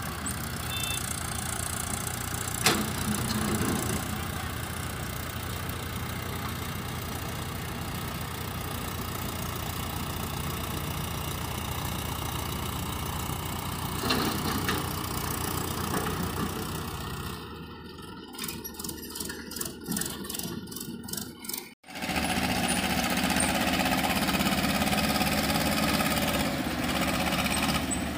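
Farm tractor's diesel engine running steadily. Near the end the sound thins out, cuts for an instant, then comes back louder.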